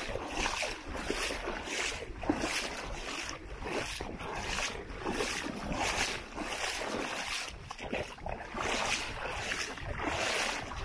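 Footsteps on the beach at a steady walking pace, about two a second, with wind rumbling on the microphone.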